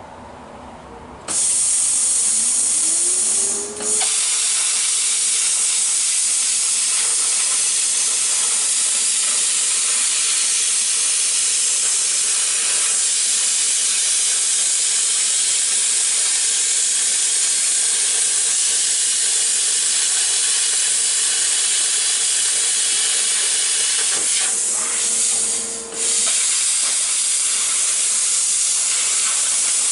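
Handheld plasma cutter cutting 14-gauge sheet steel: the loud, steady hiss of the arc starts suddenly about a second in. A steady hum alongside it rises in pitch over a couple of seconds and then holds. The hiss breaks off briefly twice, near four seconds in and again near the end.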